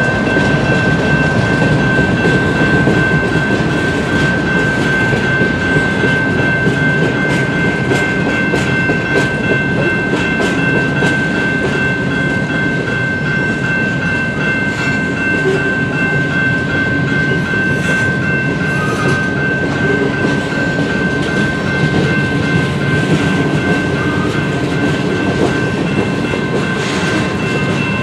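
Freight train rolling past at close range, its diesel locomotive going by at the start and then loaded tank cars and covered hoppers, with wheels clattering over the rail joints. A steady high ringing, the crossing's warning bells, sounds over the rumble.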